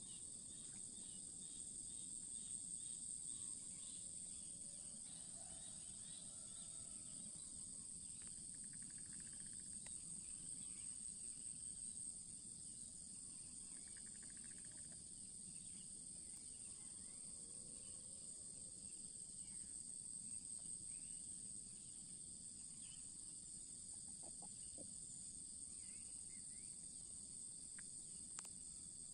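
Faint, steady high-pitched chorus of insects such as crickets, unbroken throughout, over a low background rumble.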